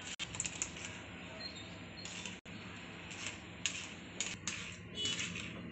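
Faint, scattered light clicks and scrapes of a spoon working watermelon milkshake through a small steel mesh strainer into a glass bowl, over a low steady hum.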